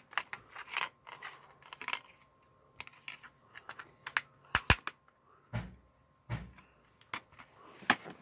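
Scattered sharp plastic clicks and taps from a black plastic DVD case as fingers work the disc on its centre hub and the case is shut. There are two duller thumps about midway, and a loud click near the end.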